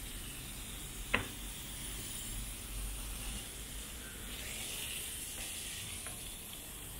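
Self-service car wash high-pressure lance spraying foamy water onto a car's bodywork and wheel: a steady hiss, with one sharp click about a second in.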